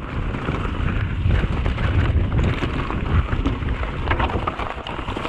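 Wind rushing over the microphone and the low rumble of a mountain bike's tyres rolling fast over a dirt forest trail, with a few sharp rattling clicks from the bike about four seconds in.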